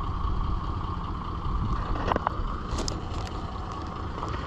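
Pickup truck running at low speed as it tows a jon boat on a trailer, a steady low rumble with a few light clicks about two to three seconds in.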